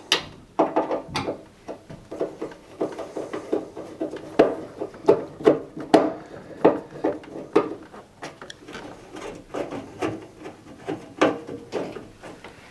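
Screws being undone from a washing machine's sheet-metal front panel with a screwdriver: a run of irregular small clicks, scrapes and light metal knocks.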